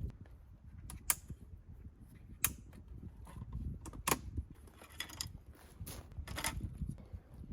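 Handling of gear: a handful of sharp clicks and knocks, irregularly spaced, over a low steady background.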